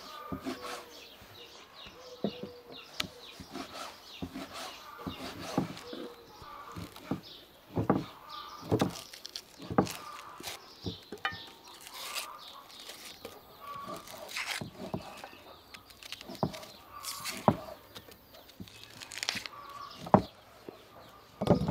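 Kitchen knife at work: slicing raw beef on a wooden chopping board, then peeling and cutting onions in the hand, heard as irregular sharp clicks, taps and knocks of the blade.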